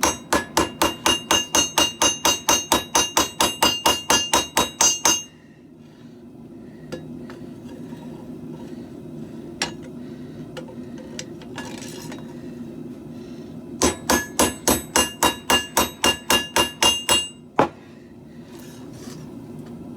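Hand hammer striking hot steel on an anvil in a fast run of about five blows a second for some five seconds, each blow ringing. After a pause with a few scattered taps, a second run of blows lasts about three and a half seconds and ends with one last strike. A steady low hum runs underneath.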